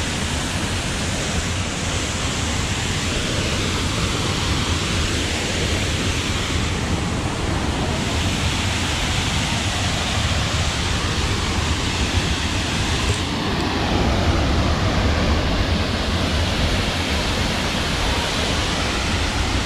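Steady, loud rush of a waterfall's falling water.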